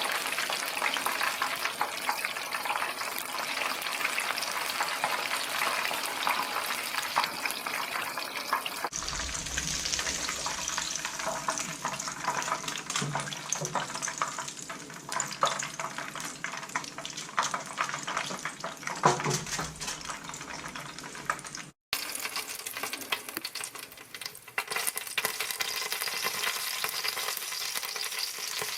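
Chicken pieces deep-frying in hot oil in a wok: a steady, dense crackling sizzle that cuts out briefly once, about two-thirds of the way through.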